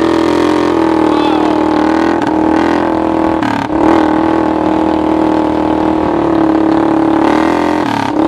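1986 Honda TRX200SX single-cylinder four-stroke ATV engine, fitted in a converted golf cart, running steadily under throttle as the cart drives. Its pitch drops briefly about three and a half seconds in, then comes back up, and dips again near the end.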